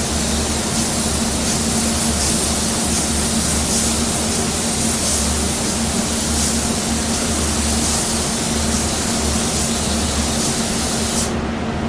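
Automotive paint spray gun hissing steadily as it sprays a reduced blend coat onto a fender. The spray cuts off near the end, leaving a steady low hum underneath.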